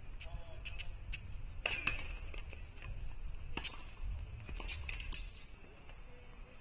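Tennis balls struck by rackets and bouncing on a hard court: a handful of sharp, irregularly spaced knocks, the loudest about two, three and a half and five seconds in.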